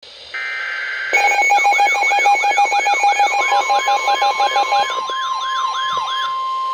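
Electronic alarm tones: after a brief steady tone, fast beeping and a wailing siren sweep that rises and falls about three times a second. From about three seconds in, a steady single-pitch tone near 1 kHz joins and outlasts them, like the 1050 Hz warning alarm tone of NOAA Weather Radio.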